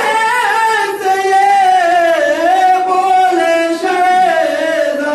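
A man singing a nauha, a Shia Muharram mourning lament, in long held notes that slide up and down in pitch.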